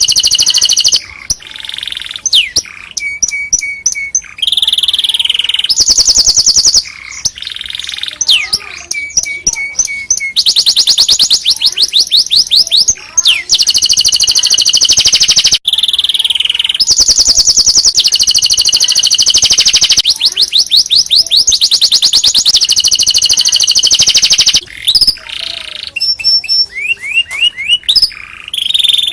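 Domestic canary singing a long, loud song made of fast trills, each phrase a run of rapidly repeated high notes, some gliding, with short breaks between phrases.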